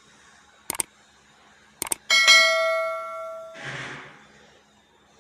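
Subscribe-button animation sound effect: two mouse clicks about a second apart, then a bright bell ding that rings out for about a second and a half, followed by a short whoosh.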